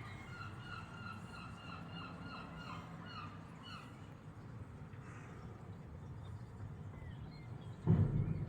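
Seagull calling in a quick run of repeated, evenly spaced notes, about four a second, for the first few seconds. Near the end comes a single dull thump, the loudest sound.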